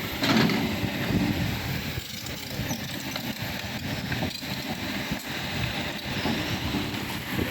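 Excavator running under load, its engine steady with irregular clanks and knocks.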